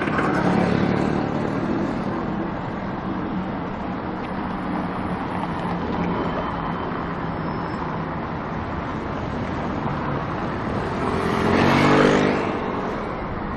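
Steady city road traffic from cars and motor scooters, with engine drone near at the start. Near the end a vehicle passes close and rises to the loudest point before fading.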